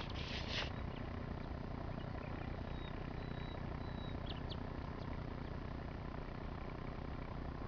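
Distant IMT 539 tractor's diesel engine running steadily while pulling a harrow, a low even drone. A few short bird chirps about three to four and a half seconds in.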